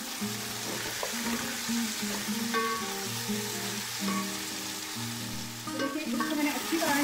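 Chicken pieces sizzling in hot ghee in an aluminium pot, stirred with a wooden spoon as they fry with garlic-ginger paste and onions, the first browning stage of a biryani masala.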